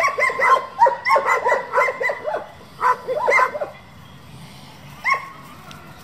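German Shepherd barking in a fast string of short, high barks for about three and a half seconds, then once more about five seconds in.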